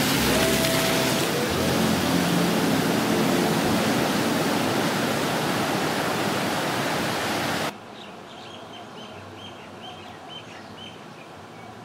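A loud, steady rushing noise that cuts off abruptly about eight seconds in. After it, a quieter background with birds chirping, many short high chirps in a row.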